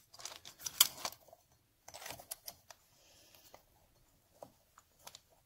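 Metal clicks and clinks of clutch parts being fitted by hand on a 1971 Triumph Tiger 650: the clutch pressure plate goes onto the clutch and is settled into place. The loudest click comes about a second in, and a few lighter ticks follow.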